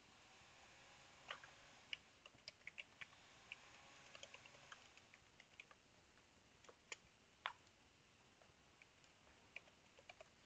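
Faint, irregular keystrokes on a computer keyboard, a scattered run of short clicks with small pauses between them.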